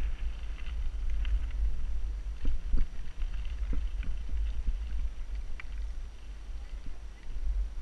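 Wind rumbling on an action camera's microphone while riding a mountain bike over a rocky dirt singletrack, with scattered knocks and rattles from the bike jolting over stones, several close together around the middle.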